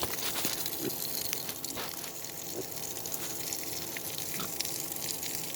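Water running steadily from a garden hose and splashing, fed from a cold mineral spring.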